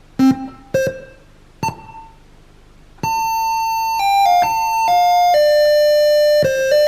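SN76477 complex sound generator chip's VCO playing MIDI-controlled notes: three short separate notes that die away, then from about three seconds a held, buzzy electronic tone that steps from one pitch to the next in a melody.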